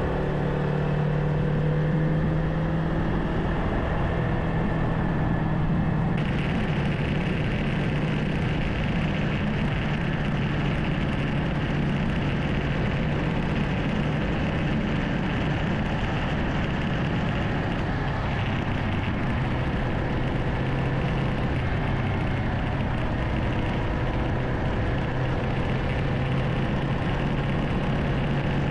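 Kawasaki Ninja 500's parallel-twin engine running steadily at cruising speed, under a constant rush of wind and road noise. The engine note drops slightly in the last few seconds.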